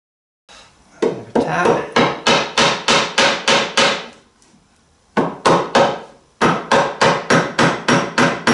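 A mallet tapping a phenolic tube spacer into the drilled hole of a wooden tiller, in quick runs of sharp blows at about four a second, with a pause of about a second near the middle.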